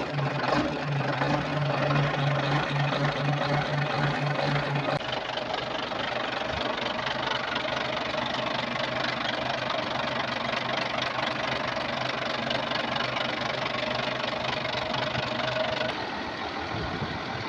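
Volvo Penta TWD121 six-cylinder turbocharged diesel engine running at idle on a test run after its intake valve was replaced. The steady drone shifts in pitch about five seconds in and eases slightly near the end.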